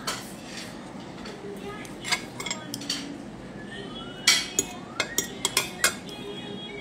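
Scattered sharp clicks and clinks of hard objects knocking together, several in quick succession about four to six seconds in.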